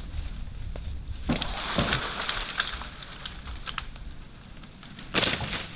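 Dry branches and brush crackling and snapping in the leaf litter as a felled tree that was hung up in springy saplings is pushed free and settles, with a louder crack near the end.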